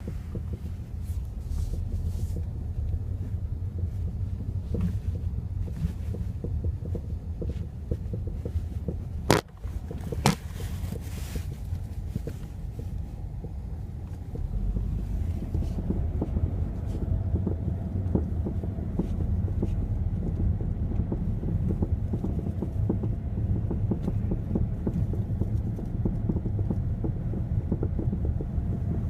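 Engine running with a knocking sound under a steady low rumble. Two sharp clicks stand out about nine and ten seconds in.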